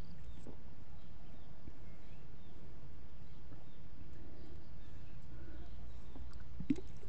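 A man drinking water from a plastic bottle in gulps, over a steady low rumble, with a short, sharper sound near the end.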